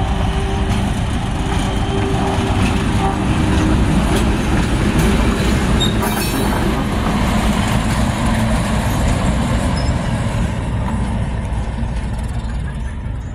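Former South Australian Railways 830 class diesel-electric locomotive 844 running light at low speed past the listener, with its diesel engine's steady rumble. There is a short run of clicks as it passes about six seconds in, and the sound eases slightly as it moves away.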